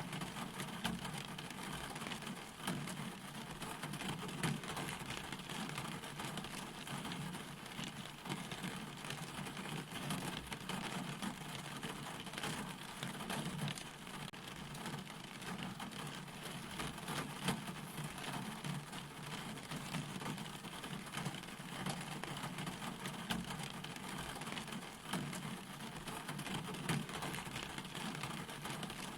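Steady rain falling: an even hiss peppered with many small drop ticks, with no let-up.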